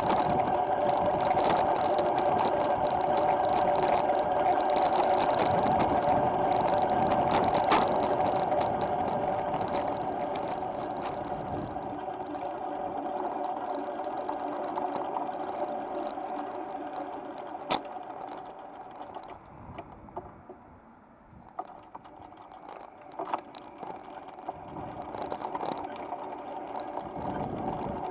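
Loaded touring bicycle rolling on asphalt: a steady hum of tyres and road noise, with scattered clicks and rattles. The noise fades away about twenty seconds in, then builds again.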